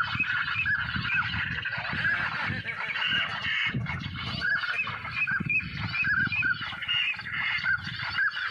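Waterfowl calling: many short honking calls, repeating and overlapping, over a low rumble.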